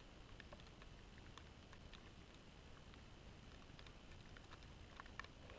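Near silence: faint background hiss with a few faint, scattered ticks.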